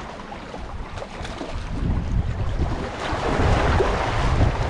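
Wind buffeting the microphone in gusts, weaker at first and stronger in the second half, over seawater washing against the concrete tetrapods of a breakwater, with a louder rush of water from about three seconds in.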